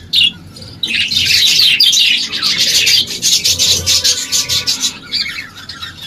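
Budgerigars chirping in a dense, rapid, raspy chatter, starting about a second in and thinning out near the end.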